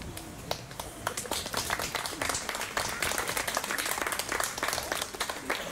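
Applause from a small crowd, a dense patter of overlapping hand claps that starts about half a second in and thins out near the end.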